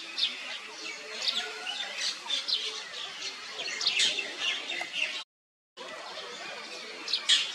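Many short, high-pitched chirping calls, overlapping and continuous. The sound cuts out for about half a second around five seconds in, then resumes.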